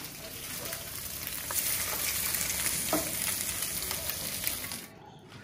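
Six eggs frying in butter in a pan: a steady sizzle with a few faint clicks, cutting off suddenly near the end.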